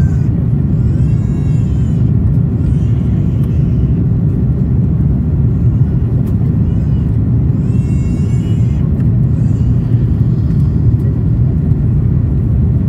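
Steady low drone inside the cabin of an Airbus A330-300 in flight, the sound of its Rolls-Royce Trent 700 engines and the airflow, with faint voices in the background.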